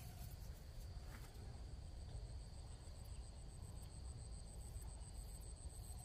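Insects trilling steadily: a high-pitched, rapidly pulsing chirr with a second steady high tone, over a faint low rumble.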